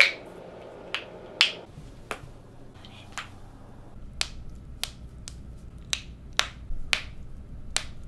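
Human finger and toe joints being cracked by hand: a couple of sharp knuckle pops, then a run of separate sharp toe-joint pops, about two a second in the second half, as the toes are bent.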